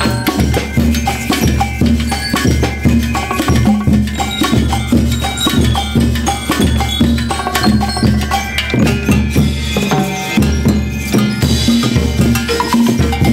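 School rhythm band (banda rítmica) playing live: drums and other percussion strike out a fast, steady beat under a pitched melody.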